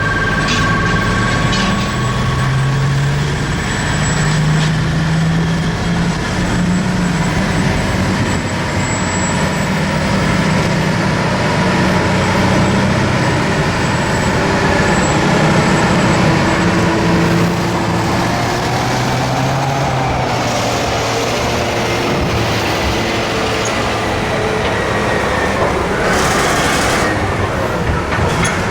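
Liebherr R9350 mining excavator and haul trucks loading overburden: heavy diesel engines run continuously, their pitch rising and falling as the machines work under load. A short hiss of air comes near the end.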